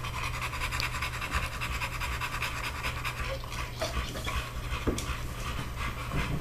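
An American Bully dog panting steadily.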